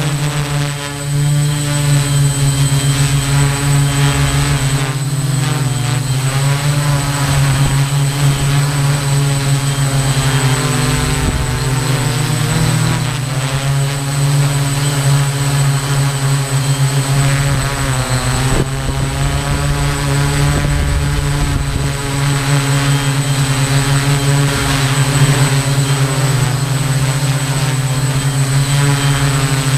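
Hexacopter drone's electric motors and propellers whirring, heard from the camera on board: a loud, steady buzzing hum whose pitch wavers now and then as the motors change speed, with a thin steady high whine over it.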